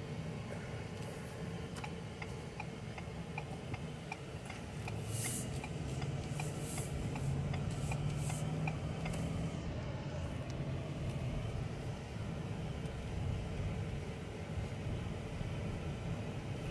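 Cab sound of a 2021 Ford F-150's 5.0-litre V8 pickup pulling away and gathering speed: a low, steady engine and road hum. Over it, for several seconds in the first half, comes an even ticking of about two to three clicks a second, the turn signal clicking as the truck turns out.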